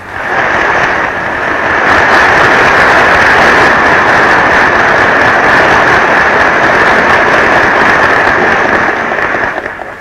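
Audience applauding: dense, steady clapping that swells in over the first couple of seconds and fades out near the end.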